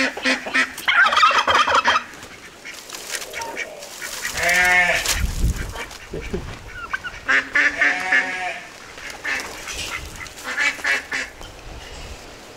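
Farmyard poultry calling: a rough call about a second in, a long loud call around the middle, and two more shorter bursts of calls later on.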